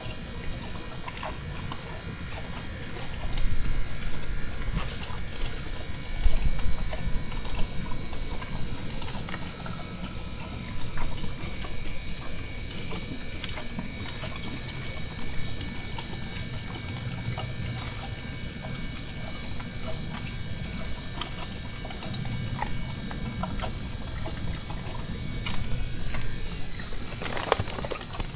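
Horse chewing feed and hay: irregular crunching and clicking with occasional low thumps.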